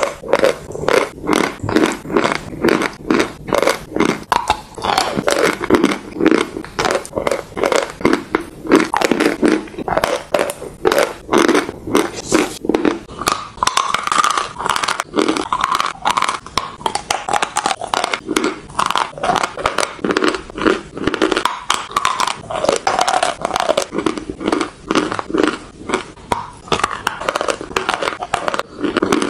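Dry chalk being bitten and chewed close to the microphone: a continuous run of sharp, crumbly crunches, several a second.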